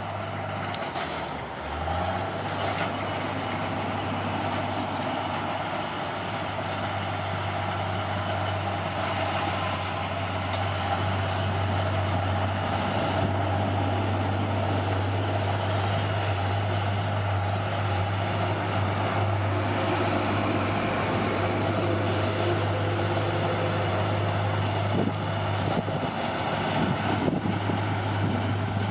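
Caterpillar D6R bulldozer's diesel engine running steadily. Its note dips briefly about two seconds in, then holds.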